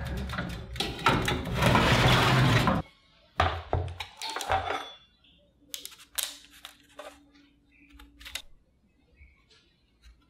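A metal baking tray scraping and rattling as it is slid out of a countertop oven, with a few sharp clicks of metal about three to five seconds in. Then only light ticks and soft crinkling of parchment paper as the baked egg cakes are touched and picked up.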